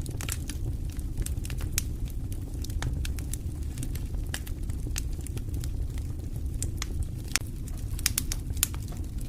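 Campfire burning: irregular crackles and snaps over a steady low rumble, with a few sharper pops near the end.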